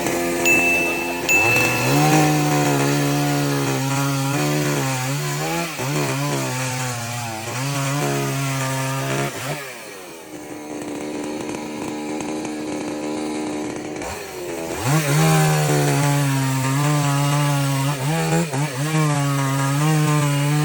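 Chainsaw running and cutting wood, its engine note dipping and recovering as it works. It eases off to a lower, quieter note for a few seconds around the middle, then revs back up.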